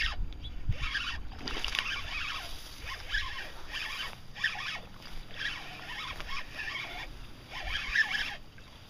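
Fishing reel cranked in short, uneven spurts: a rasping, ratchety whir every half second or so, with pauses between, as a topwater soft-plastic lizard is twitched and retrieved.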